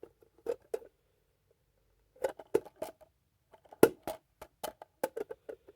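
Small plastic mini wheelie bins being handled and set down: a series of irregular light plastic knocks and clicks, grouped in quick runs, with the loudest knock about four seconds in.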